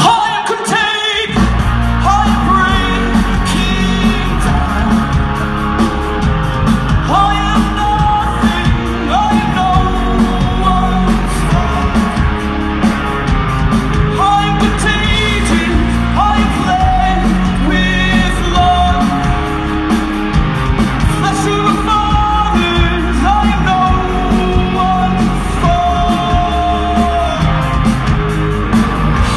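Live rock band playing with a lead singer, amplified through the stage PA. The bass and drums drop out for a moment and come back in with the full band about a second in.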